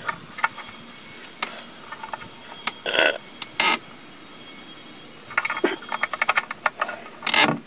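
Small steel hook-and-eye latch on a wooden door being worked by hand: scattered light metal clicks and clinks as the hook is lifted out of the screw eye and handled. A quick rattling run of clicks comes about five and a half seconds in, and a louder bump near the end.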